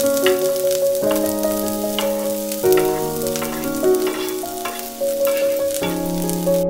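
Sliced green bell pepper and red onion sizzling and crackling in hot oil in a frying pan. A soft piano tune plays over it.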